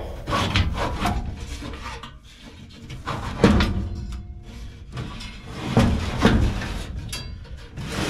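Irregular knocks, clinks and scrapes of a sheet-metal furnace panel and a screwdriver being handled and fitted inside a furnace cabinet.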